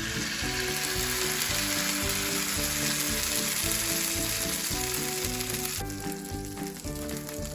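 Sweet-corn cachapa batter sizzling as it is ladled into a hot frying pan with melted butter. The sizzle cuts off suddenly about six seconds in, with light background music throughout.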